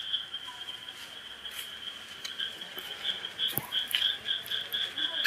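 An animal's high-pitched, rapidly pulsing trill, with a faint knock about three and a half seconds in.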